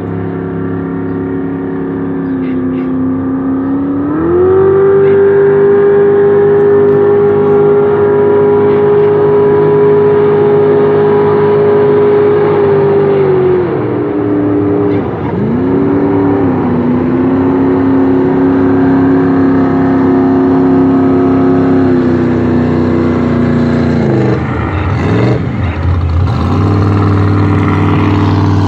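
High-horsepower jet boat engine running hard, its pitch climbing and holding, then dropping and rising again several times as the throttle is worked.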